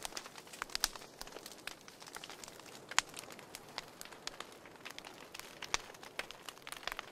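Campfire crackling: irregular sharp pops and snaps over a faint hiss, with one louder pop about three seconds in.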